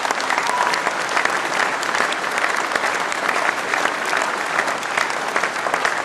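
Large audience applauding: steady, dense clapping of many hands that keeps up without a break.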